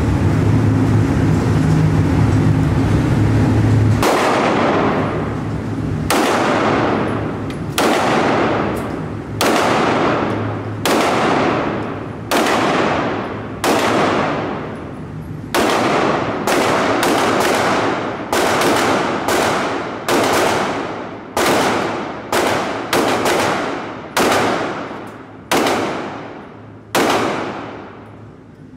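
Handgun fired shot after shot in an indoor shooting range: a couple of dozen single shots at an uneven pace, roughly one or two a second, starting about four seconds in, each ringing off in a long echo. A steady low hum comes before the first shot.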